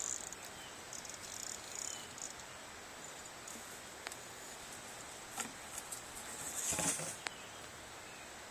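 Faint outdoor background with insects chirping in short high bursts, a few sharp clicks, and a louder rustle about seven seconds in.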